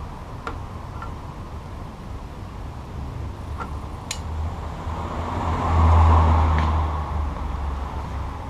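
A road vehicle passing by, its low rumble swelling to a peak about six seconds in and then fading. A few light clicks sound in the first four seconds.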